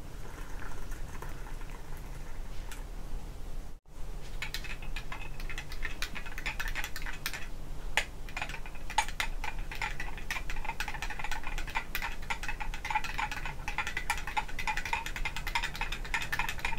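Hot water poured faintly into a glass cup of instant coffee powder. About four seconds in, a metal spoon stirring inside the glass cup takes over: a quick, steady run of clinks and light ringing against the glass.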